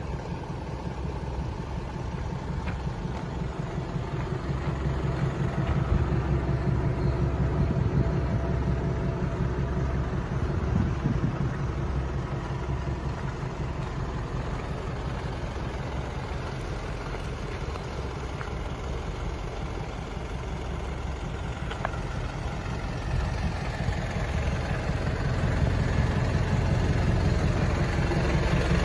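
Hino Dutro truck's S05C four-cylinder diesel engine idling steadily with an even low rumble, louder for a stretch about a quarter of the way in and again near the end.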